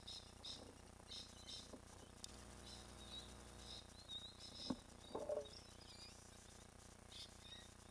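Faint high chirps and trills of small birds, repeated on and off. There is a single soft knock about halfway through and a brief rustle just after it.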